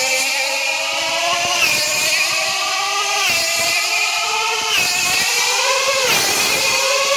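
Class 3 tethered model race car's 5 cc two-stroke engine running at high revs as the car laps the pylon and gathers speed. Its whine rises in pitch, swelling and dipping once a lap, with the laps coming a little closer together.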